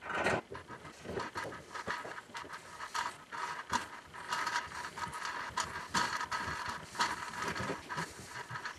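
A tap being turned by hand with a small T-handle tap wrench, threading a hole in a metal part held in a bench vise: a quick, uneven run of clicks and scraping.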